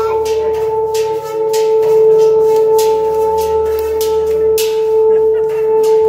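Large bronze bossed gong made to sing by rubbing its face by hand: a steady, loud, humming tone with a fainter higher overtone, kept going by the rhythmic hand strokes, whose rasp is heard over it.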